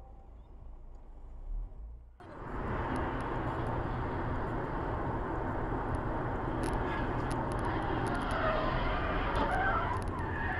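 A faint low hum, then about two seconds in a sudden switch to steady road and wind noise of a car driving at highway speed, heard from inside the cabin. Faint wavering high tones come in near the end.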